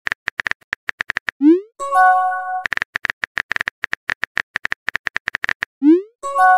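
Phone touch-keyboard typing clicks in quick runs of about eight a second. Each run ends in a short rising pop as a message is sent, followed by a bright chime for the new chat message. This happens once about a second and a half in and again near the end.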